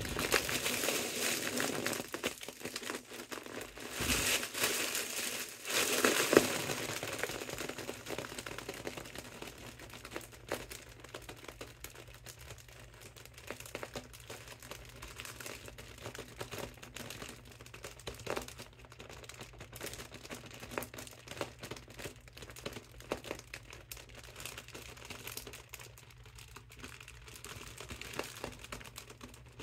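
Mylar foil balloon crinkling as a hand presses it down to squeeze the air out through a straw in its valve. Louder bursts of crinkling come in the first several seconds, then lighter scattered crinkles.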